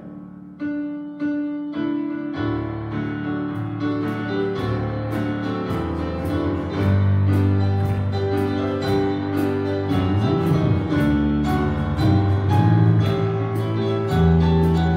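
Live worship band playing the instrumental opening of a song: a keyboard plays a few held notes alone, then bass, guitars and drums come in about two seconds in with a steady beat.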